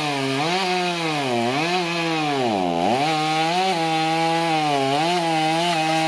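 Electric chainsaw cutting into an ash log, its motor whine sagging in pitch again and again as the chain loads up in the wood, then running steadier for the second half.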